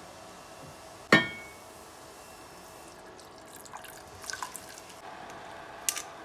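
A single sharp clink of kitchenware with brief ringing about a second in. Then water is poured from a glass pitcher into an enamelled cast-iron saucepan of broth, trickling and dripping. Near the end comes a short burst of crackly clicks from a pepper mill grinding.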